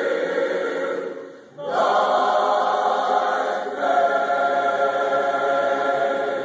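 Choir singing long held chords as background music, the sound dropping away briefly about a second and a half in before a new chord swells back, with another chord change about four seconds in.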